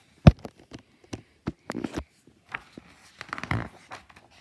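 Pages of a large children's picture book being handled and turned: a sharp tap a quarter second in, then scattered soft knocks and short paper rustles.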